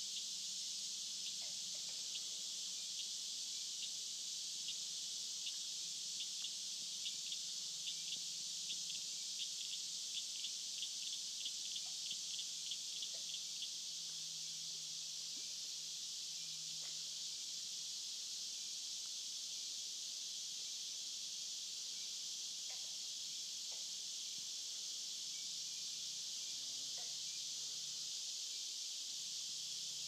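Steady high-pitched chorus of insects. From a few seconds in, a rapid run of ticking calls, about four a second, lasts some seven seconds. A faint low hum runs underneath.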